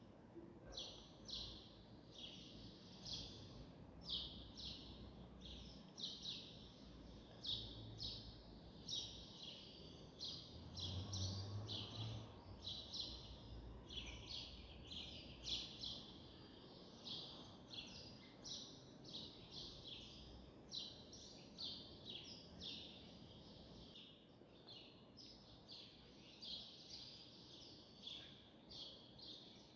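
Faint, rapid chirping of small birds, short high chirps repeating several times a second over quiet background noise, with a brief low hum in the middle.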